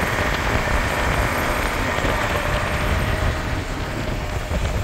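Off-road tour bus driving up a volcanic cinder track, heard from inside the vehicle: a steady engine rumble with tyre and road noise.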